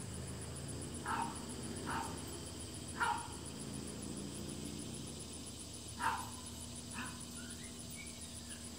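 A dog barking: five short single barks, three about a second apart, then a pause, then two more.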